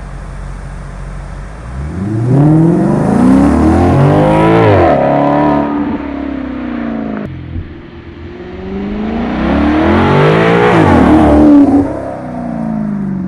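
Ferrari-built V8 of a Maserati GranTurismo accelerating past the microphone twice, its engine note rising and then dropping in pitch each time it goes by. No whistle from the fitted turbo whistles stands out.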